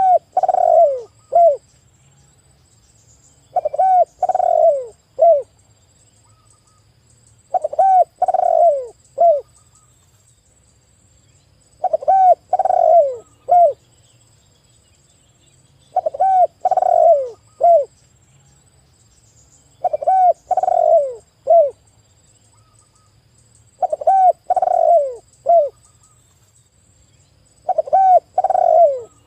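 A spotted dove (tekukur) calling, repeating its cooing phrase about every four seconds, eight times. Each phrase is a short note, two longer falling coos and a short closing note.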